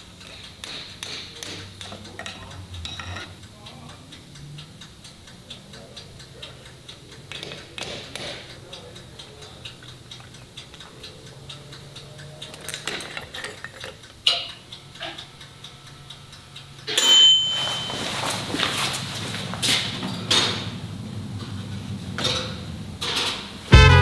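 Workshop clatter of tools and metal dirt-bike parts being handled: scattered light clicks and knocks. About seventeen seconds in comes a louder rushing noise, and loud swing music starts near the end.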